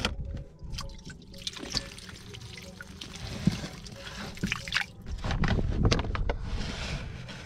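Water splashing and dripping as small live bait fish are scooped with a hand net out of a water-filled tank, in a string of short splashes.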